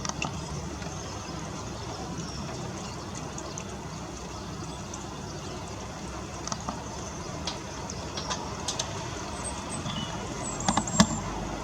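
Steady pouring rain hissing down, with scattered sharp ticks of drops and a few brief high chirps in the second half.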